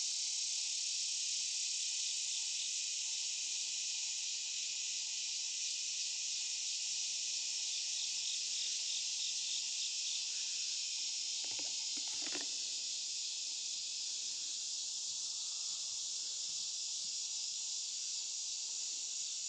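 Steady high-pitched drone of an evening insect chorus.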